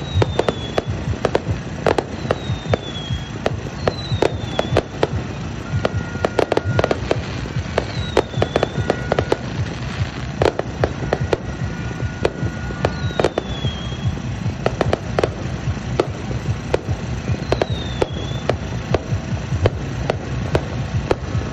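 Aerial fireworks bursting in a rapid, irregular series of sharp bangs and crackles over a constant rumble. Short falling whistles recur every couple of seconds.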